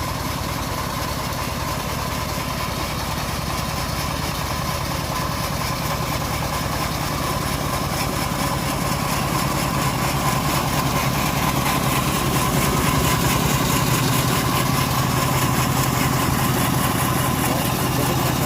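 Engine of a homemade sawmill rig running steadily, getting louder from about ten seconds in.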